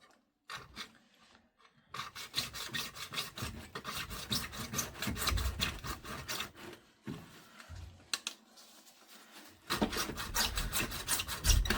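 Hand saw cutting through plastic pipe in quick back-and-forth strokes, stopping for a couple of seconds in the middle and starting again near the end.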